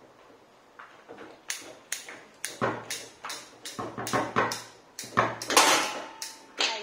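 Foosball being played: the ball struck by the plastic men and the rods knocking, heard as a fast, irregular run of sharp clacks. It starts about a second and a half in and is loudest just before the end.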